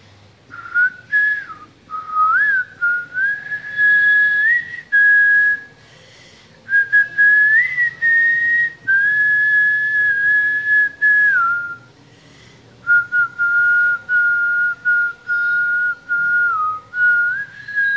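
A person whistling a slow tune, mostly long held notes with small slides between them, in several phrases with short breaks.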